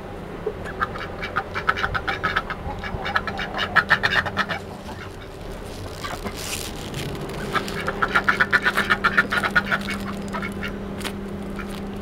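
Aigamo duck quacking in two long runs of rapid quacks, the first starting about a second in and the second about seven and a half seconds in.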